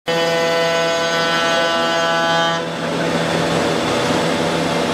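5-axis CNC router running: a steady whine with many overtones that gives way, about two and a half seconds in, to a rougher, noisy whir over a low steady hum.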